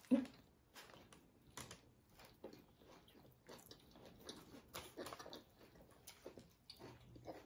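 Two people chewing and biting into sub sandwiches, heard as faint, irregular small mouth clicks and smacks.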